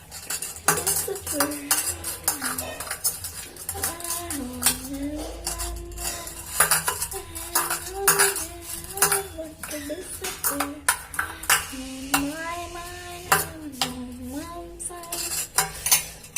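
A spoon stirring slime in a bowl, clinking and scraping against the bowl in quick irregular strikes. A melody plays quietly underneath.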